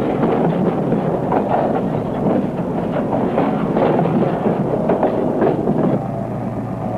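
Freight boxcars rolling past, their wheels and couplers clanking irregularly; the clanking stops about six seconds in.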